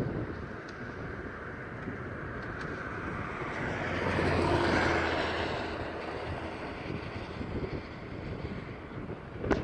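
A vehicle passing by, swelling to a peak about halfway through and fading away, over wind noise on the microphone.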